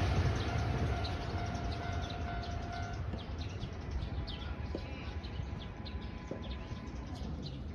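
A passing train's rumble fading steadily away, with small birds chirping repeatedly over it.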